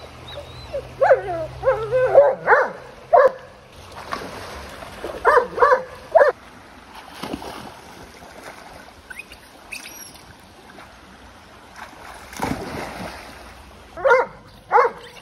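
Chesapeake Bay retriever barking and yipping in short clusters: a run of calls near the start, two or three more a few seconds later, and a string of regular barks near the end. Under it is the steady rush of a shallow creek, with a burst of splashing about two-thirds of the way through.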